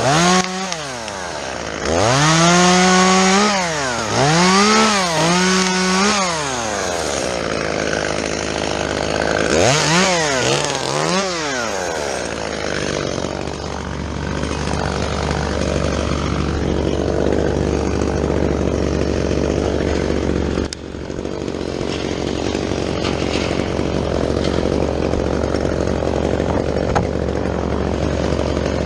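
Chainsaw engine revving up and down several times, then running steadily.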